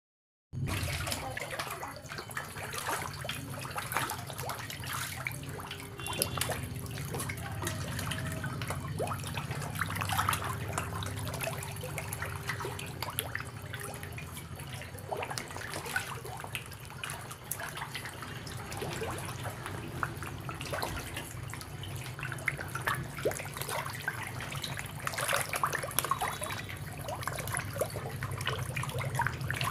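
Shallow water splashing and trickling as a crowd of small fish churns the surface, with many small splashes and a steady low hum underneath.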